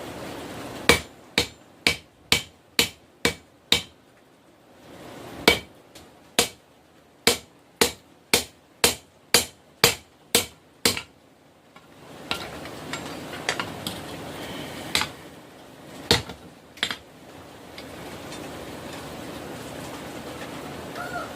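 A hammer striking metal with ringing clangs, in two quick runs of about three blows a second, then a few scattered blows over a steady rushing noise.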